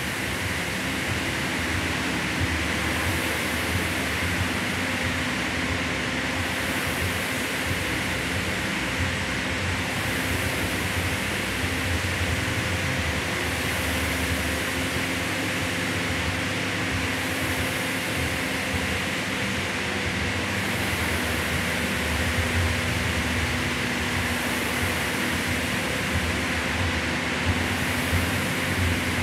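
Air-resistance rowing machine's fan flywheel whirring steadily under continuous rowing, swelling a little with each pull every few seconds.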